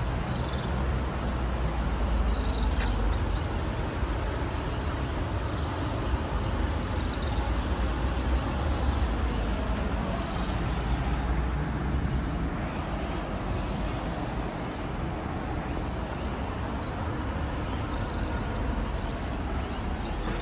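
City street background: a steady low rumble of traffic, with small birds chirping faintly now and then.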